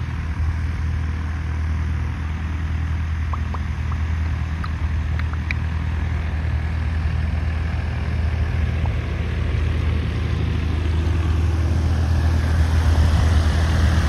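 Cessna 172's piston engine and propeller, a steady low drone that grows louder over the last couple of seconds as the plane comes in low to land.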